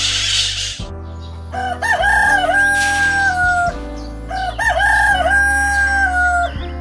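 A rooster crowing twice, each crow a short broken opening followed by a long held note that drops slightly at the end, over background music.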